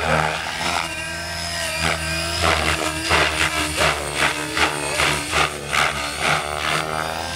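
Radio-controlled model helicopter in aerobatic flight: rotor blades and motor whine swell and fall in rapid pulses about twice a second as the rotor is loaded and unloaded.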